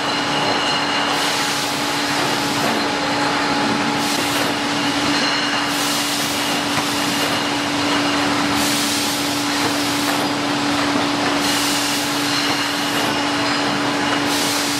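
Beer bottling-line machinery running: a loud, steady din with a constant hum, and a hiss that swells and fades every two to three seconds.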